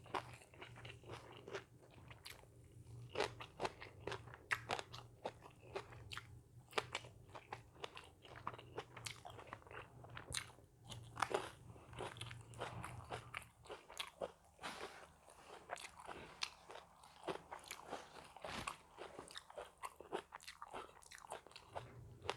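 A person chewing and biting food close to the microphone, with many irregular crunches and mouth clicks.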